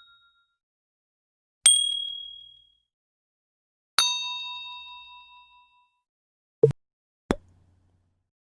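Editing sound effects in quick succession: a bright single-tone ding about two seconds in, then a lower bell-like chime with several ringing tones about four seconds in, each ringing out over a second or two, followed near the end by two quick short pops.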